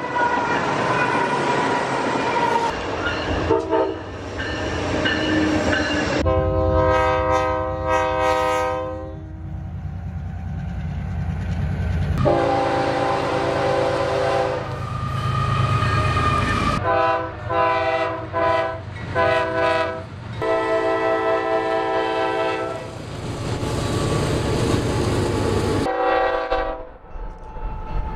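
Diesel freight locomotives passing, with engine rumble and wheels on rail, then several long air-horn blasts in chords. The sound changes abruptly a few times where one clip cuts to the next.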